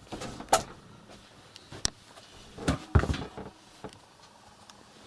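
A door being shut: a few knocks, a sharp latch click about two seconds in, and a heavier thud with a rattle about three seconds in.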